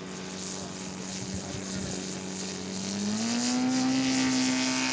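Engine of a radio-controlled scale model airplane running steadily, its pitch rising about three seconds in and holding higher as the throttle opens.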